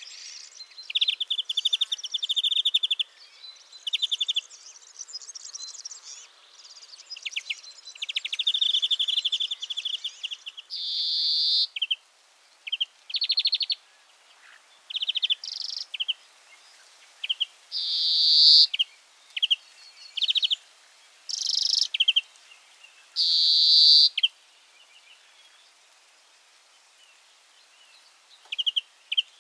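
European greenfinch song: fast twittering trills of repeated notes, then, from about ten seconds in, several long, rasping wheezes about a second each, separated by short chirps and brief trills.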